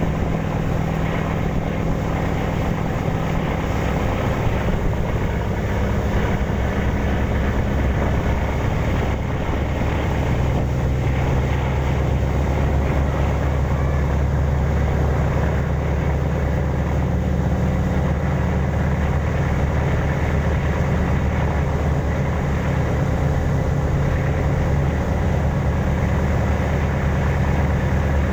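Passenger ship under way at speed: a steady low engine drone with water rushing along the hull.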